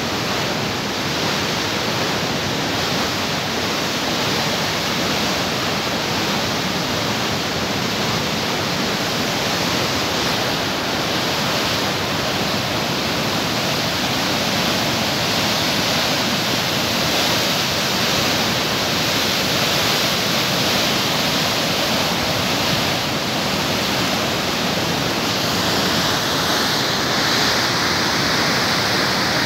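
Water rushing out of a concrete dam's open bottom sluice gates and churning as whitewater in the channel below: a loud, steady rush.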